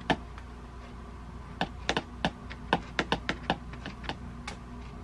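About a dozen light, irregular taps, bunched together in the middle, over a faint steady hum.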